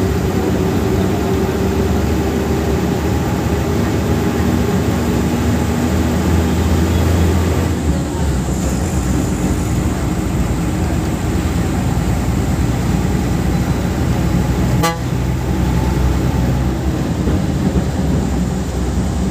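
Bus's diesel engine running under way, heard from inside the driver's cabin as a loud, steady low drone with road noise. The engine note changes about eight seconds in, and a single sharp click comes about fifteen seconds in.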